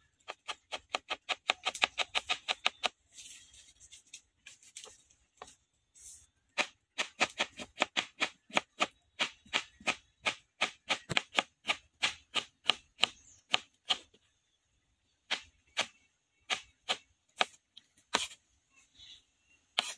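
Kitchen knife chopping raw potato into thin strips on a wooden cutting board: quick runs of knocks about five a second, broken by a pause of a few seconds, then slower separate cuts over the last few seconds.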